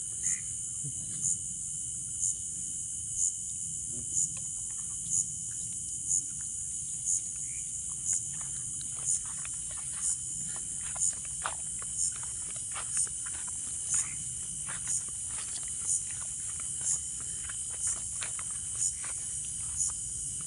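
Insects trilling steadily in a high-pitched chorus that swells about once a second, over a second, steadier tone, with faint scattered ticks and rustles.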